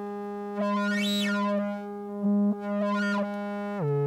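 Double Knot v3 analog synthesizer holding a sustained tone with one oscillator hard-synced to the other. As the synced oscillator is tuned, the timbre sweeps brighter and back down about three times while the pitch holds, then the pitch steps down near the end.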